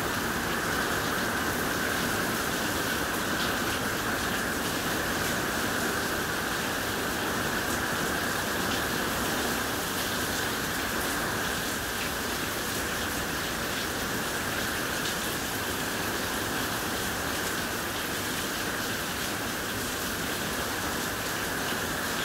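Steady rain from a hurricane's outer band pouring down, an even, unbroken hiss of falling drops.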